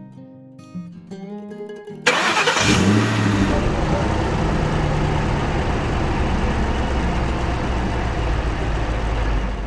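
An engine sound effect: about two seconds in, an engine starts with a sudden loud burst, then runs steadily with a low hum, over background music.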